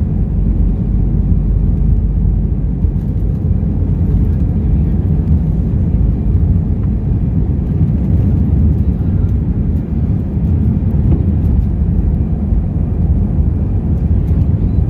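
Airbus A319's CFM56 jet engines at takeoff thrust heard from inside the cabin: a loud, steady low rumble as the airliner speeds down the runway, lifts off and climbs away.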